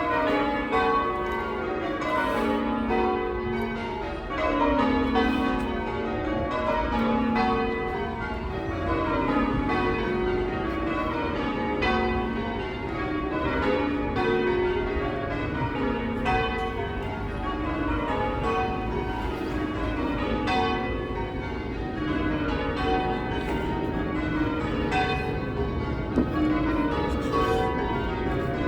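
A ring of eight church bells, most cast in 1694 by Philip Wightman, being rung full-circle in rows that repeat steadily. Each row is a quick run of strikes stepping down the scale. The bells have a rather shrill, dry tone.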